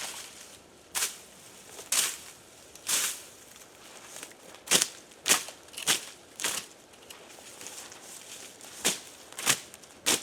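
Dry pine needles and leaf litter crunching: about a dozen short, separate crunches at uneven intervals, several in quick pairs and threes.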